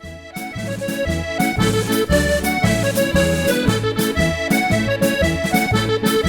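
Accordion playing a lively Irish jig, a melody over a steady, even bass accompaniment. It comes in from a pause at the very start.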